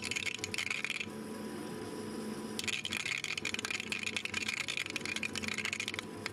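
Pulse EDM sparks crackling between a fine-grained graphite electrode and a tantalum plate under dielectric fluid. A dense crackle lasts about a second, stops, then starts again about two and a half seconds in and runs until near the end, where a few sharper single clicks follow.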